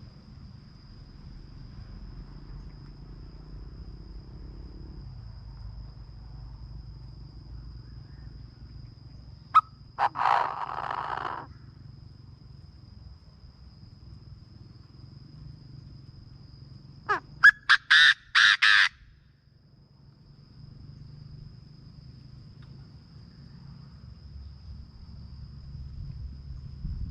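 Chinese francolin calling: one harsh call about ten seconds in, then a loud series of quick notes around the seventeen-to-nineteen-second mark.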